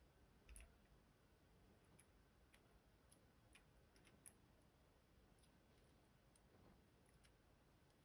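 Faint, sparse small clicks of steel tweezers working inside an emptied pin-tumbler lock cylinder housing, fishing out the driver pins. The clicks come irregularly, about eight in all; the sharpest come about half a second in and just after four seconds.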